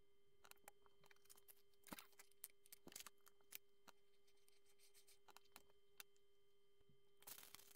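Faint scattered clicks and taps of Lego pieces being handled and pressed onto a model, thickening into a quick flurry of clicks near the end, over a faint steady hum.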